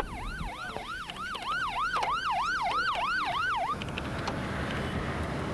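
Police car siren yelping, rising and falling quickly about three times a second. It cuts off abruptly a little before four seconds in, leaving steady road noise.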